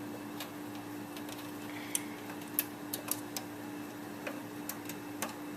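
Scattered small clicks and taps as a WiFi expansion card is worked into its slot inside a desktop computer case, over a steady low hum.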